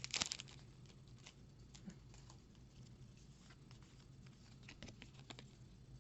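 Faint handling of a freshly torn booster pack: a brief crinkle of the wrapper at the start, then sparse soft clicks and taps as the cards are handled, over a low steady hum.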